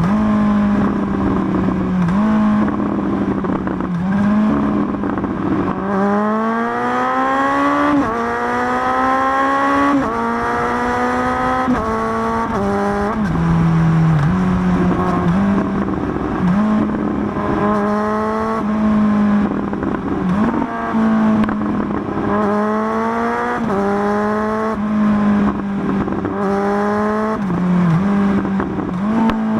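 Kawasaki Z900 inline-four motorcycle engine through an SC-Project S1 GP exhaust, in a tunnel, running loud and repeatedly revving up: the note climbs in pitch over a second or two, falls back, and climbs again many times.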